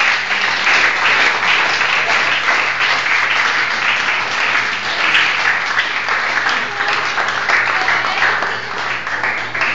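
Audience applauding, a dense and steady clapping, with a steady low hum underneath.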